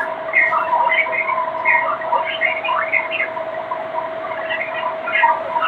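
Narrow, radio-quality emergency alert broadcast audio: an unclear, garbled speech-like voice over a steady high hum.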